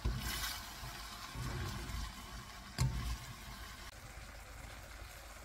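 Glass noodles and vegetables being tossed and mixed in a stainless steel pan with a wooden spatula: soft scraping and rustling, with a sharp knock nearly three seconds in.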